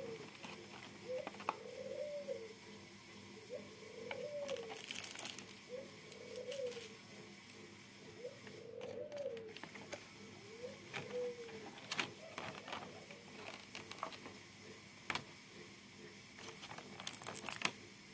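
A dove cooing over and over, about six coos each rising and falling, spaced roughly two seconds apart through the first dozen seconds. Through the second half come sharp clicks and crinkles of a clear plastic food-container lid being handled.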